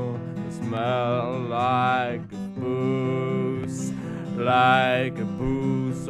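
A song with strummed acoustic guitar and a sung voice holding long, wavering notes.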